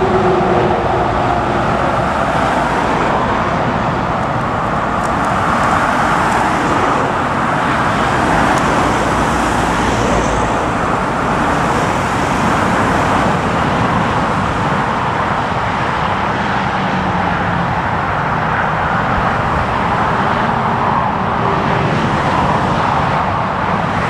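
Convoy of police cars and vans driving past, a steady rush of engine and tyre noise with no siren clearly sounding.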